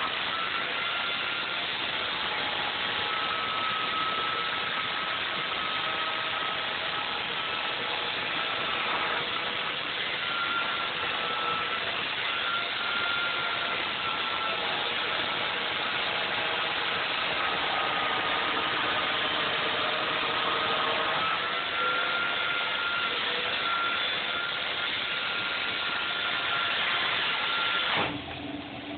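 Electric chainsaw running while cutting through a block of carving foam, a steady motor whine that shifts slightly in pitch as it works, cutting off about a second before the end.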